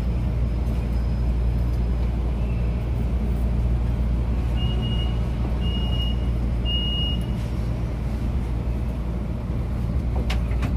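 Steady low rumble inside a crowded MRT-3 Dalian light rail car, with three short high electronic beeps in a row about halfway through and a brief click near the end.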